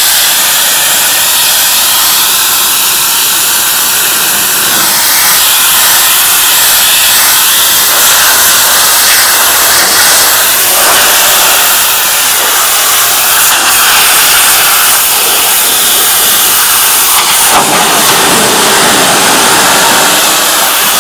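Hot-water pressure washer (4 gallons a minute, 2000 psi) spraying, a loud steady hiss of the water jet blasting grease off a metal pan.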